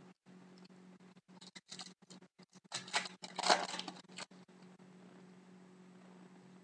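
Hockey trading cards and their foil packs being handled: a run of short rustles and clicks, with louder crinkling about three to four seconds in, over a faint steady low hum.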